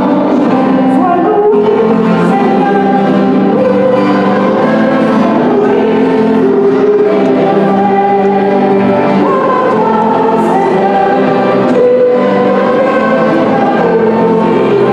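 A choir singing a hymn with long held notes.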